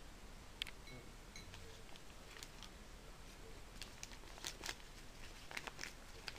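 Faint crinkling and tearing of paper as a small dog chews and tugs at a sheet held to its mouth: scattered short rustles and rips, busiest from about four to six seconds in.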